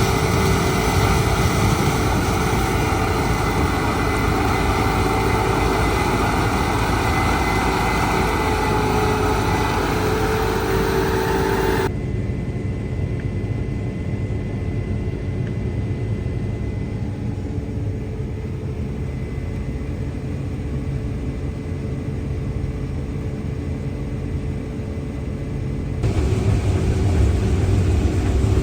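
Heavy farm harvest machinery running steadily during corn harvest, with an engine drone and a steady hum. The sound changes abruptly about twelve seconds in, to a duller, darker drone, and again near the end, back to a brighter, louder engine sound, as if cut between different machines or vantage points.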